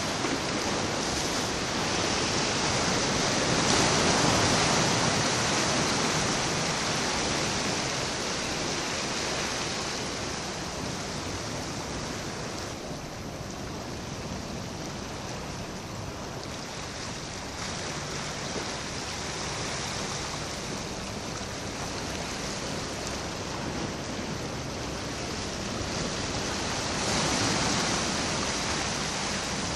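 Sea surf washing against the rocky harbour breakwater, a steady rush of water that swells a few seconds in and again near the end.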